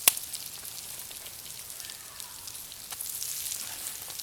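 Coated bluegill frying in hot oil: a steady crackling sizzle with many small pops, and one sharp click just after the start.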